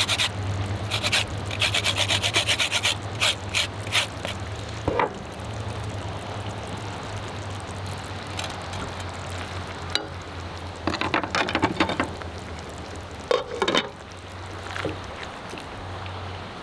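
Lemon zest being grated on a fine rasp grater: quick rasping strokes in bursts through the first four seconds and again around eleven to fourteen seconds in, over a steady low hum.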